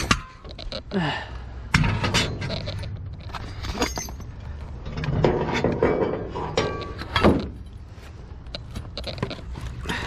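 Debris being shifted and pulled around in a dumpster: irregular knocks, clatters and scraping of pieces of metal, board and drop-ceiling tile, with one louder knock about seven seconds in.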